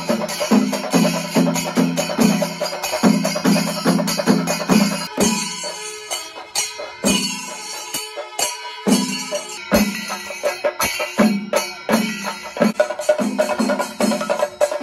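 Chenda Melam ensemble playing: chenda drums beaten with sticks in a fast, dense rhythm over clashing ilathalam hand cymbals. The low drum pulse drops away for a few seconds in the middle, then comes back in.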